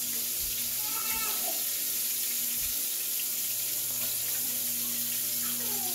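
Breaded shrimp frying in hot oil in a skillet, a steady sizzle.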